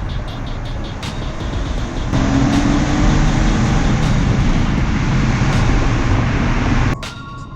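Mitsubishi 3000GT VR4's twin-turbo V6 running as the car drives. About two seconds in it gets louder, with a brief rise in pitch as it accelerates, and it cuts off abruptly near the end.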